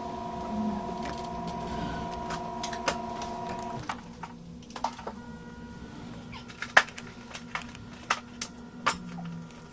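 Small clicks and taps of meter probes and tools being handled on the monitor's circuit board. Under them is a steady electrical hum of several tones that cuts off about four seconds in. The loudest click comes a little past the middle.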